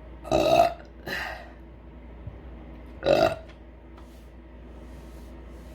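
A woman burping: a loud burp shortly in, a shorter, softer one right after it, then another loud burp about three seconds in.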